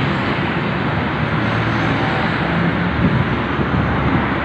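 Steady noise of road traffic passing, with a low engine hum underneath.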